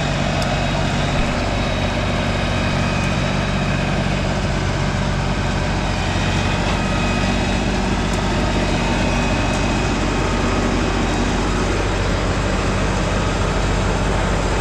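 LS compact tractor's diesel engine running steadily at an even speed as the tractor drives up to a log with its loader grapple raised.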